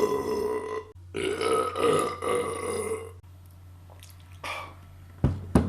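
Long, loud beer burps: one trailing off about a second in, then a second lasting about two seconds, its pitch sinking slightly. Near the end come two short low thumps.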